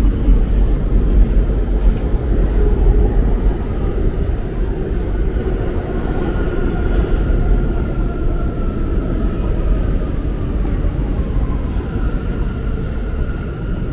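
Lower Manhattan street ambience: a steady low rumble of city traffic, with a faint high whine that slowly falls in pitch in the middle and returns near the end.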